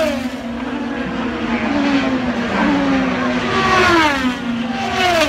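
IndyCars' twin-turbo V6 engines screaming past at racing speed, one after another, each engine note falling sharply in pitch as the car goes by.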